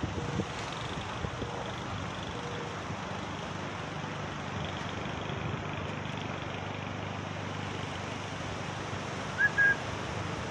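Steady low rumble of wind on the microphone mixed with road traffic, as a storm front comes in. A short high chirp sounds once near the end.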